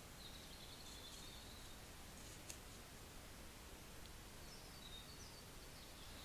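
Near silence: faint night forest ambience with two short runs of faint high, wavering chirps and a couple of soft clicks.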